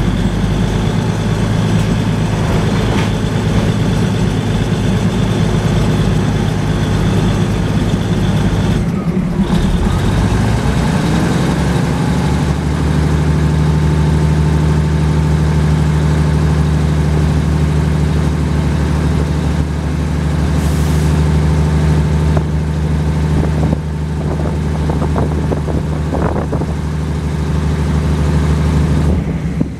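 Diesel passenger train running, its engine a loud, steady drone heard from aboard. About ten seconds in the engine note changes, then holds steady again.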